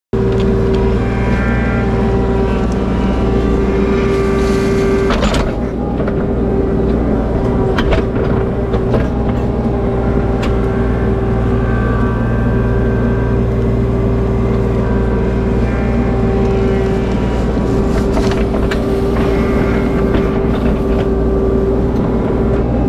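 Mini excavator's diesel engine running steadily close up, with a hydraulic whine that comes and goes as the boom and bucket work. Scattered sharp knocks come from the steel bucket digging into clay and stones in a trench.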